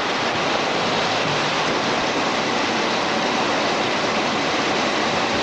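Heavy rain pouring down, a steady, even hiss with no let-up.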